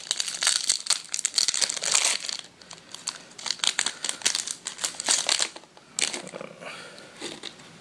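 Foil Yu-Gi-Oh! booster pack crinkling as it is torn open by hand, in bursts that grow fainter near the end.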